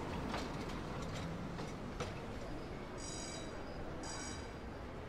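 City street ambience: a steady low hum of traffic with scattered light clicks, then a high bell rings twice, about a second apart, each ring short.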